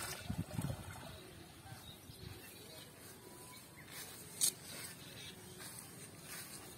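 A wet cast net pulled out of a pond with a splash, then gathered in by hand, its mesh rustling, with low thuds in the first second and one sharp swish about four and a half seconds in.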